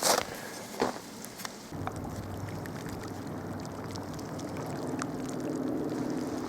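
A steady low mechanical hum with a few clear tones sets in about two seconds in and slowly grows louder, after a few sharp crunching clicks.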